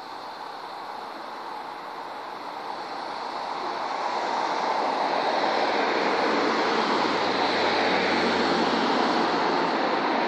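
A car approaching along the street, its tyre and engine noise growing steadily louder over the first four seconds and then staying loud.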